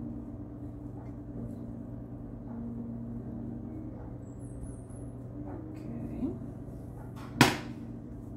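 Spatula scraping broccoli rice out of a stainless-steel skillet into a baking dish, with faint clicks over a steady low hum. About seven seconds in, one sharp metal clank with a brief ring as the skillet is set down on the glass-top stove.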